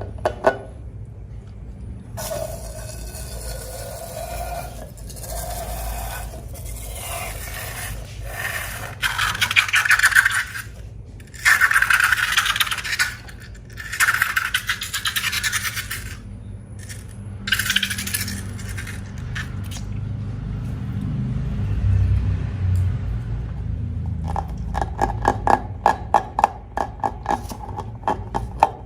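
Slime being scraped and mixed in a container, in several stretches of scraping with short breaks, then a run of rapid clicking near the end.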